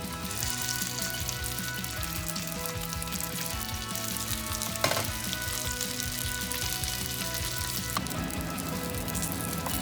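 Rice balls sizzling as they pan-fry, browning in the pan. A single sharp click sounds about five seconds in.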